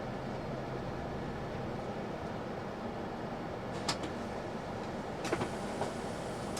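Steady engine and road noise inside a moving bus. A sharp click sounds about four seconds in, and a few more short clicks follow a little over a second later.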